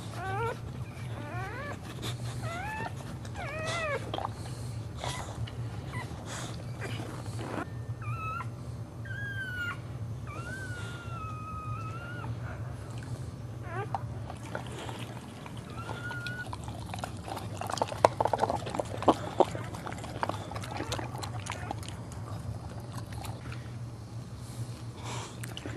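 Boxer dog whining in labour: several short high cries that rise and fall, then longer wavering whines. About two-thirds through come a cluster of sharp wet clicks as she licks at the newborn puppy in its sac, over a steady low hum.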